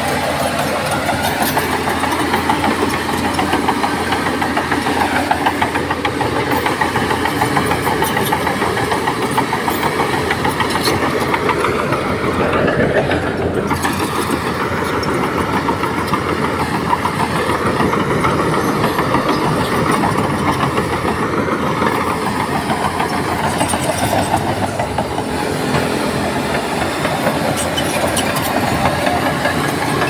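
Shantui crawler bulldozer's diesel engine running steadily under load, with a brief shift in pitch about thirteen seconds in.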